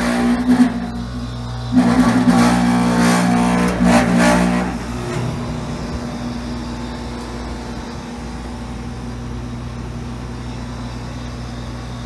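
Refrigeration units on cold-storage containers running with a loud, steady mechanical drone. Twice in the first five seconds a louder, tonal surge with many overtones rises over the drone, then it settles back to a steady hum.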